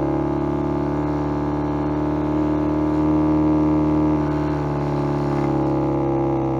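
Homemade electronic sound effect imitating the equal-length exhaust note of a Subaru EJ20 flat-four, generated from a spinning sound disc read by a light sensor and shaped by filter circuits. It is a steady, engine-like drone with many overtones, holding close to one pitch like an engine at constant revs.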